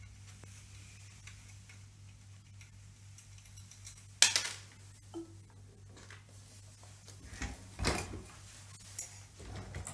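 Sharp clicks and knocks of small metal parts being handled while an espresso machine is taken apart, as its transformer and screws are worked free. The loudest knock comes about four seconds in, with a few more near the end, over a low steady hum.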